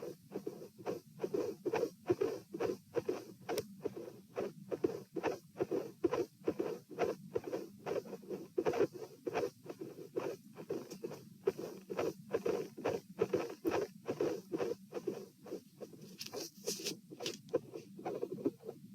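Human heart sounds heard through a stethoscope at the pulmonic (P) area: paired lub-dub beats, a little over one heartbeat a second, in a person with a dilated aortic root and midsystolic murmurs. A brief scratchy rustle comes near the end.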